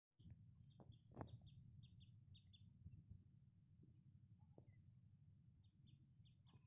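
Faint bird chirping: a run of short chirps, about three a second, in the first few seconds and again near the end, over a low background rumble, with a couple of faint knocks early on.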